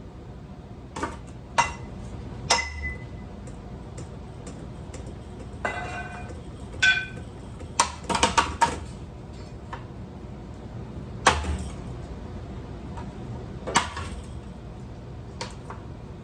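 Irregular clanks and clinks of ceiling fan parts being knocked and handled, about a dozen separate strikes, some ringing briefly like metal or glass, with a quick run of them about eight seconds in.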